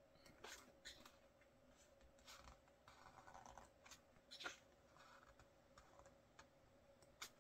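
Faint rustling and flicking of photobook pages turned by hand, a string of soft paper ticks and rustles with the sharpest flick about four and a half seconds in.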